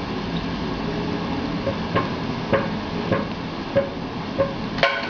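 A series of short, sharp knocks or taps, about seven in all, coming roughly every half second from a couple of seconds in, over a steady background hum.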